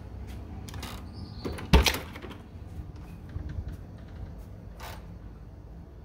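Wooden hotel room door being unlatched and pushed open: one sharp clack of the latch a little under two seconds in, with lighter clicks and knocks around it.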